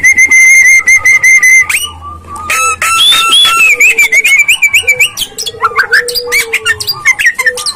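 Javan myna (jalak kebo) singing loudly: a held whistle broken by rapid clicks, a brief pause, then a run of varied gliding whistled notes, and about five seconds in a lower long note with a fast rattle through it.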